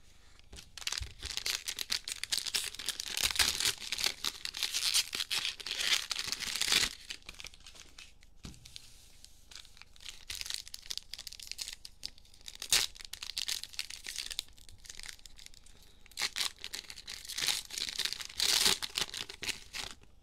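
Plastic cello-pack wrappers of Mosaic football cards being torn open and crinkled. There is a long run of crackling for about six seconds from a second in, then shorter bursts later.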